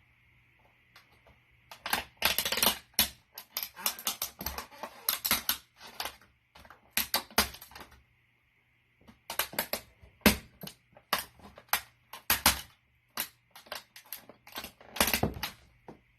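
Plastic toy car cracking and crunching under a boot: quick runs of sharp snaps and crackles, coming in two bursts with a short pause between.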